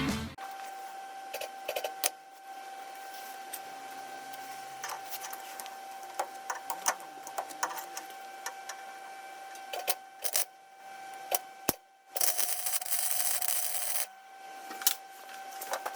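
Shop handling sounds: scattered clicks and light knocks over a steady faint whine, with a hiss lasting about two seconds about twelve seconds in.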